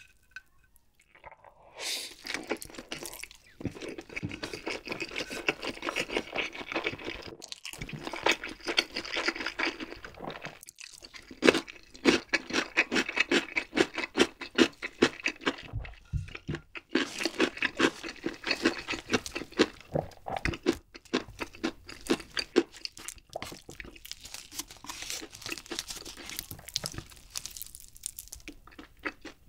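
Close-miked chewing of a mouthful of carbonara fire noodles (carbo buldak), with wet clicking mouth sounds in quick succession. It comes in stretches broken by brief pauses.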